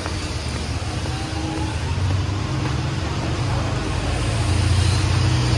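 Buses running at a bus interchange: a steady low engine rumble over general traffic noise, growing a little louder near the end.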